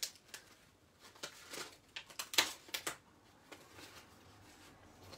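Light clicks and rustles of small craft items being picked up and moved about on a desk during a search for a missing cutting die, most of them in the first three seconds and fewer toward the end.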